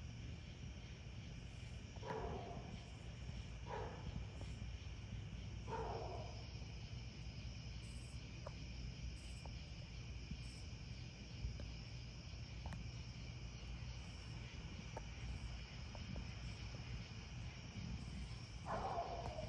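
Crickets and other insects trilling steadily over a low rumble, with a high chirp repeating about once a second. Four short falling calls sound in the first six seconds and near the end.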